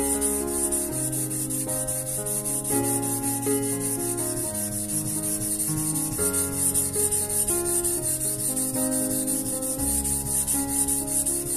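Steady abrasive rubbing, back and forth on a wet 220-grit King whetstone, over background music of changing held notes.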